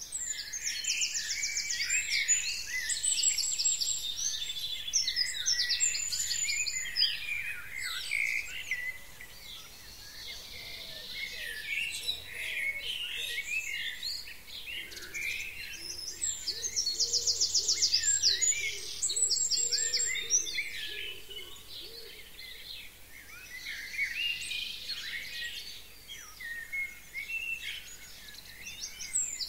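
Several songbirds singing and chirping in a steady chorus. A fast, high trill lasting about a second comes back several times among the chirps.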